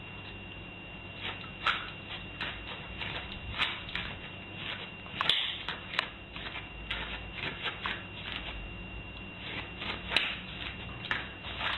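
A dog's claws clicking irregularly on a tiled floor and doormat as it steps about, a few ticks a second.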